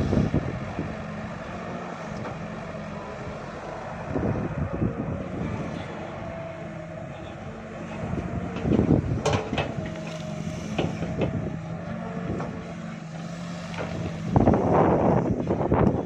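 Sumitomo S265 hydraulic excavator working: its diesel engine runs with a steady hum and picks up in surges as the boom and bucket move under load. There are a few sharp clanks about nine seconds in, and a louder spell near the end as the bucket digs into and lifts earth and weeds.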